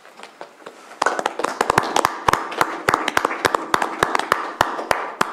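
A small group applauding: scattered hand claps that start about a second in and die away near the end.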